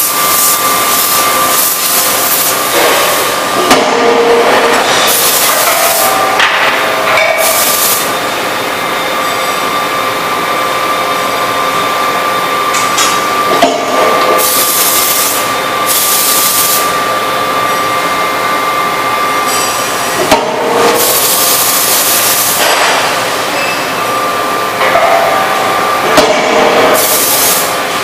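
Power forging hammer striking a red-hot workpiece in its dies: sharp loud blows every several seconds, each with a burst of hissing. A steady machine whine runs underneath.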